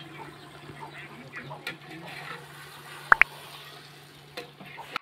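Outdoor background of faint bird calls over a steady low hum. About three seconds in come two sharp clicks in quick succession, the mouse-click sound effect of an on-screen subscribe-button animation.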